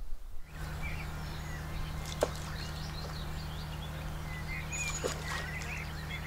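Birds chirping and peeping in many short high calls over a steady low hum, with a sharp click about two seconds in.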